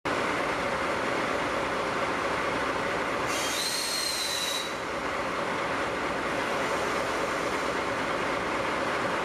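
Steady loud hiss and rumble of the C58 steam locomotive letting off steam beside the idling DD51 diesel locomotive. A brief high squeal lasting over a second comes in about three seconds in.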